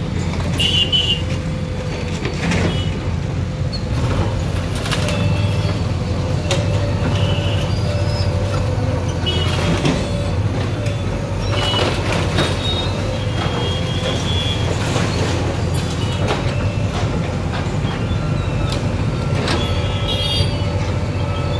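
JCB backhoe loader's diesel engine running steadily while it demolishes a shop front, with scattered clanks and crashes of breaking masonry and sheet metal.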